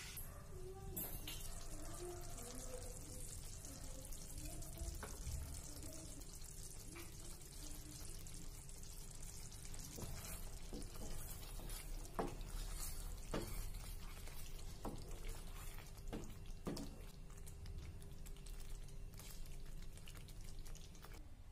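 Thick curry bubbling and sputtering in a pan, over a faint steady hum. In the second half there are several sharp clicks of a spatula knocking against the pan.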